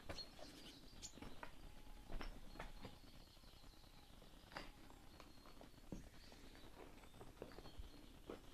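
Faint footsteps crunching over broken brick and plaster rubble, a scatter of irregular clicks and crackles.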